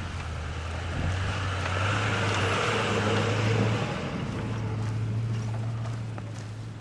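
A motor vehicle passing on a snow-covered road: a low engine hum with a hiss that builds to a peak about three and a half seconds in, then fades away.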